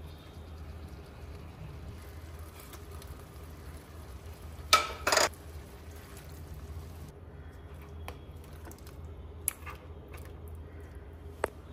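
Cooking sounds in a stainless-steel pot of meat masala: a short loud clatter of a utensil against the pot about five seconds in, water poured in from a glass cup, and a silicone spatula stirring, with a few light knocks later. A low steady hum runs underneath.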